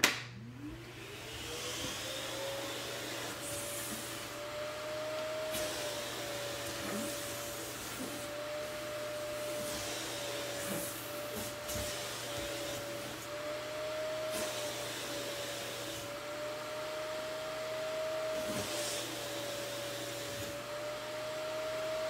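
Canister vacuum cleaner switched on with a click, its motor whining up to speed over about two seconds, then running steadily with a slightly wavering pitch. Short airy hisses come every few seconds while the hose sucks at the fabric of a long pleated chiffon dress.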